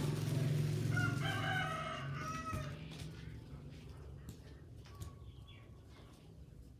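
A rooster crowing once, a single long call of about two seconds starting about a second in and falling in pitch at its end. A low steady hum sounds under the first second or so.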